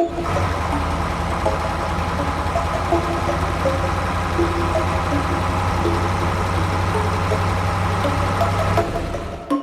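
A small motor running steadily with a low hum, dying away about nine seconds in.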